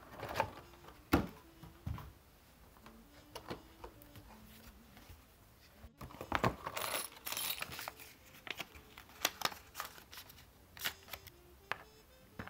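Small clicks, taps and rustles of a Clue board game being set up: the cardboard box lid coming off, then plastic pawns, cards and a die being placed on the board.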